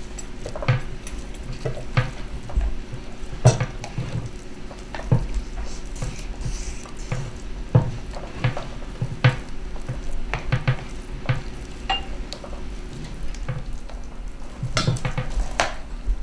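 A kitchen utensil knocking and scraping in a 4x9-inch loaf pan, with irregular taps about once or twice a second, as meatloaf mixture is pressed flat and spread evenly.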